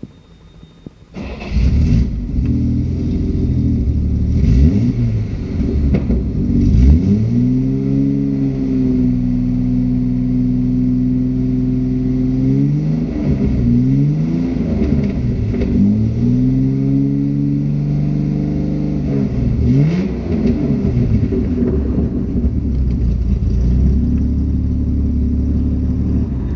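1966 Jaguar straight-six engine starting about a second in and running. It is revved up and held at raised revs twice for several seconds, dropping back to idle each time, then idles to the end.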